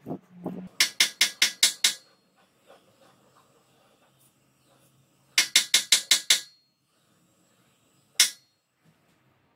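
Sharp knocks of a thin steel rod with a white grip on its end being struck down onto a steel welding table to drive the grip onto the rod: two quick runs of six knocks, about five a second, then one single knock near the end.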